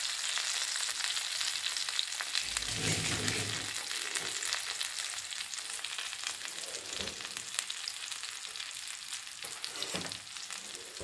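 Rava-coated fish steaks shallow-frying in oil on a flat tava: a steady sizzle full of small crackles, easing slightly toward the end. A brief low rumble about three seconds in.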